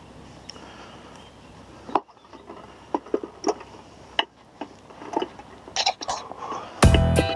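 Light clicks and knocks of handling close to the microphone, scattered and irregular, over a faint steady background. Loud electronic music with a beat starts near the end.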